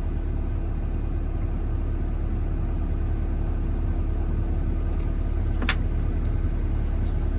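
Excavator diesel engine running steadily with a low rumble and a constant hum. A couple of brief sharp clicks come near the end.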